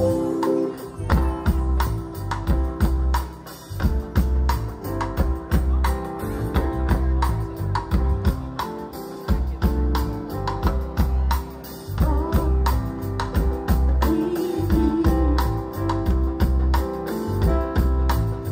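Live reggae band playing an instrumental passage with no vocals: a heavy, repeating bass line under steady drums, with keyboard and guitar chords.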